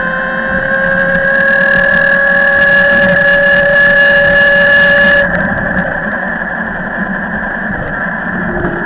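Talaria XXX electric dirt bike's motor whining under throttle, its pitch rising slowly as the bike gathers speed. About five seconds in, the whine cuts off suddenly as the throttle is released, leaving a steady rushing wind and road noise while the bike coasts.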